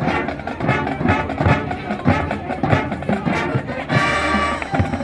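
Marching band playing, brass over a steady drum beat, with a held brass chord near the end.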